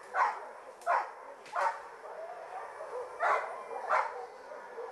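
A boar-hunting dog barking: three sharp barks about two-thirds of a second apart, a pause, then two more.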